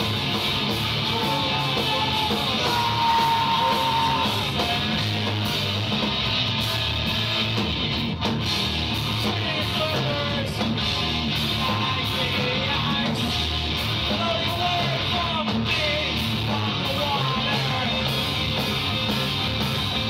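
A live heavy math-rock band playing loud: distorted electric guitars, bass guitar and drums, with a vocalist singing and shouting over them.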